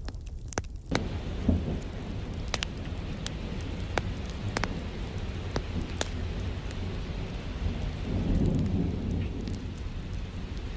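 Steady rain with a low rumble of thunder that swells about eight seconds in, and scattered sharp crackles.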